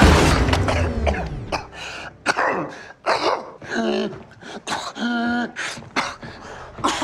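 A man coughing and gasping for breath over and over, with short strained, choking sounds, as if he cannot breathe. It opens with a loud noisy burst that fades over a second or so.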